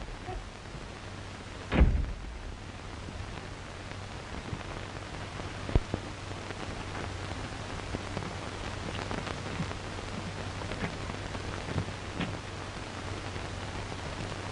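Steady hiss and crackle of an old film soundtrack over a low hum, with one loud thump about two seconds in and a sharp click near six seconds.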